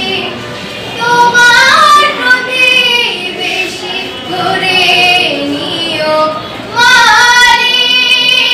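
A girl singing solo with no instruments, holding long notes and sliding between pitches. The loudest passages come about a second in and again near the end.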